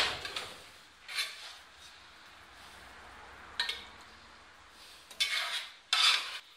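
A metal ladle clinking and scraping against a frying pan and a ceramic serving dish as pieces of chicken are lifted out and laid in the dish. A sharp clink at the very start is the loudest, then separate knocks and scrapes follow, with a cluster near the end.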